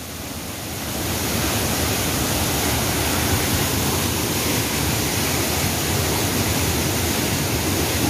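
Rushing water of a rain-swollen river and waterfall, a steady heavy noise. It grows louder over the first second, then holds.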